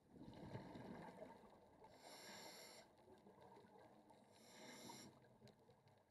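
Faint sound of a scuba diver breathing through a regulator underwater. A bubbling rumble of exhaled air opens the clip, and a short hiss of inhaling comes about two seconds in and again near the end.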